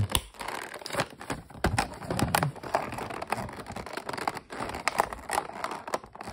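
Plastic blister packaging on a cardboard backing card being handled and pressed by hand: crinkling plastic and scratching, with many small sharp clicks.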